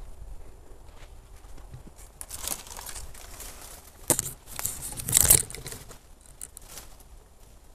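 Dry palmetto fronds and leaf litter rustling and crackling against the body and camera while pushing through scrub, in uneven bursts that are loudest a little after four seconds and again around five seconds in.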